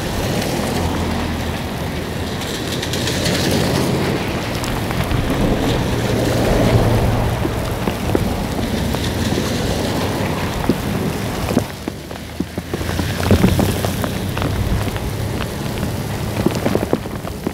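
Heavy rain pouring and splashing on a flooded road, loud and steady, with gusts of wind rumbling low and swelling and easing; cars pass through the water.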